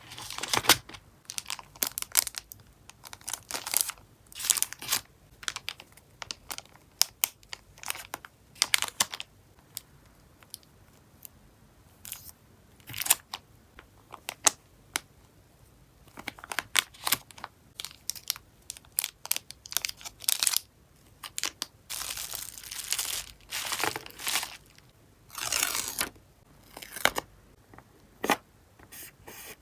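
Plastic sleeves and packing materials crinkling and rustling in the hands while photocards are packed, with irregular short taps and crackles and a few longer rustles near the end.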